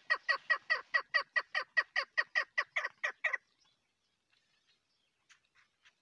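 Female chukar partridge calling: a rapid run of about sixteen short notes, each sliding down in pitch, about five a second for three and a half seconds, then a few faint notes near the end.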